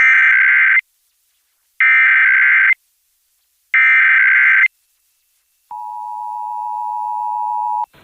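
Emergency Alert System SAME header: three identical bursts of buzzy data tones, each just under a second, about two seconds apart. Near the end comes the steady two-tone EAS attention signal, getting slightly louder for about two seconds before it cuts off.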